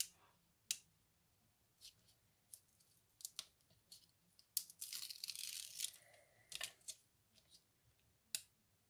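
Faint peeling of the paper backing off strips of double-sided tape on card, with a longer peel about five seconds in, among light clicks and taps of the craft pick and card against the cutting mat.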